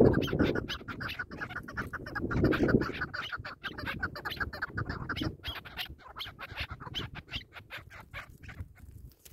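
Chukar partridges calling, a fast run of clucks, several a second, that thins out near the end. Two louder low rumbles come at the start and about two and a half seconds in.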